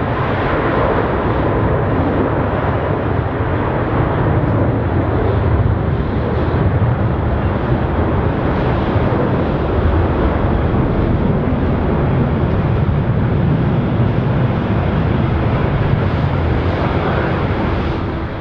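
Airbus A330-300's Rolls-Royce Trent 700 jet engines at takeoff thrust: a loud, steady jet roar with a deep rumble as the airliner rolls down the runway and climbs away.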